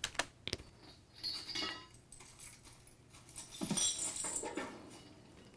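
Layered sound effect of a suit of armor being dropped: chains rattling and metal clattering, with the loudest metallic crash about four seconds in as the armor hits the ground, then fading.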